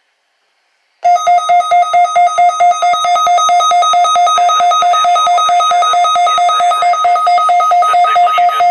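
NOAA weather radio receiver's alert alarm sounding, set off by the weekly test: a loud, rapid pulsing two-tone beep that starts about a second in and stops near the end.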